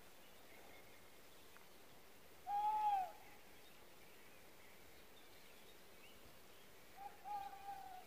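Tawny owl song: one long hoot that rises and falls in pitch, then about four seconds later a fainter, wavering, quavering hoot.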